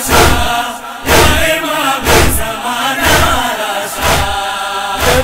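A noha lament chanted by voices, kept in time by heavy thumps about once a second: mourners beating their chests in matam.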